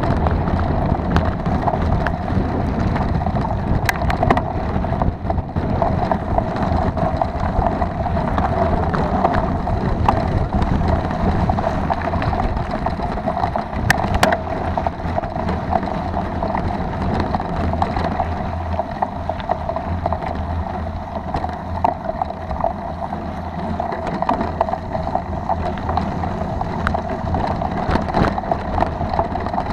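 Mountain bike rolling over a rough gravel and dirt track, heard through a camera mounted on the bike: steady tyre rumble with many small rattles and knocks from the bumps, and wind on the microphone.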